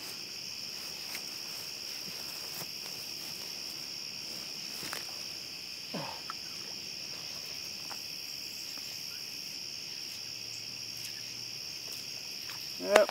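Steady night chorus of crickets, a constant high-pitched trilling, with a few soft rustles. Just before the end a sudden loud burst breaks in.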